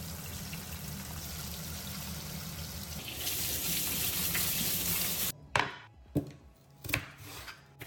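Fish pieces sizzling steadily as they shallow-fry in oil in a pan. A little after that, a kitchen tap runs onto a tomato and onion in a steel colander for about two seconds. The water stops suddenly, and a few sharp knocks follow as an onion is handled on a bamboo chopping board.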